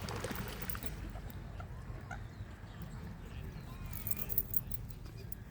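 Faint, short bird calls over a steady low hum, with a few light clicks.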